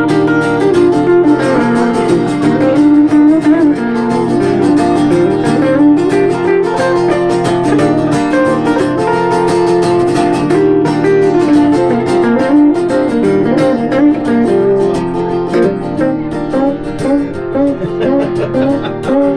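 Live instrumental guitar music without singing: an acoustic guitar strumming chords while a hollow-body electric guitar picks a lead melody over them.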